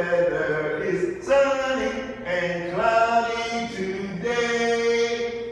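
Children's voices reciting English words aloud from flash cards in a drawn-out, sing-song chant, about four long held phrases in a row.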